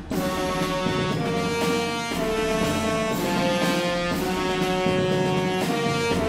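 Background music: an upbeat instrumental track with brass and a steady beat.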